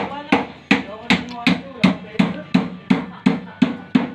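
Hammer blows struck in a fast, even rhythm, about two to three a second, each with a short ring.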